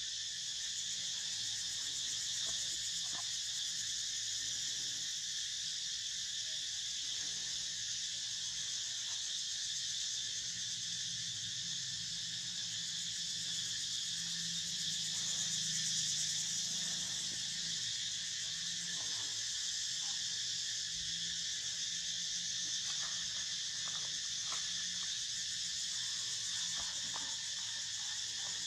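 Steady chorus of insects, high-pitched and unbroken throughout.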